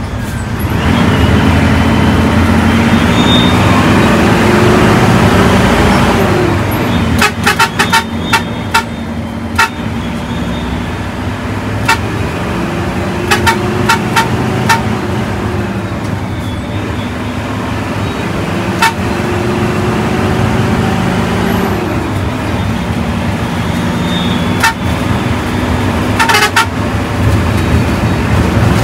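Intercity bus's diesel engine under hard acceleration, pitch climbing and dropping with gear changes three times, horn tooting amid the road noise, and clusters of sharp clicks or rattles in the middle and near the end.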